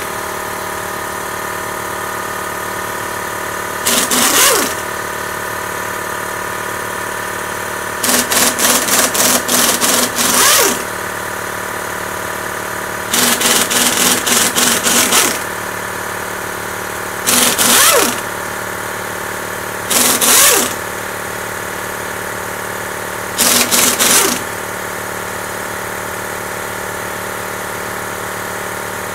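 Chicago Pneumatic air impact wrench hammering loose the cylinder-head nuts of a classic Mini engine, in six rattling bursts of rapid blows, some under a second and some two or three seconds long. A steady hum with several fixed tones runs under it throughout.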